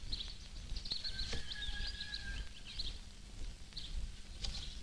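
Birds chirping and twittering in short, high squiggly calls, with one held whistled note about a second in, over a steady low rumble; a couple of sharp knocks stand out, one about a second in and one near the end.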